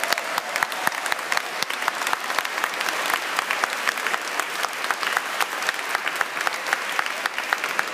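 Church congregation applauding, many hands clapping steadily.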